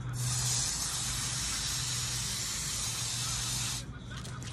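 Garden hose spray nozzle spraying water onto a dog's wet coat: a steady hiss that cuts off sharply near the end as the nozzle is released.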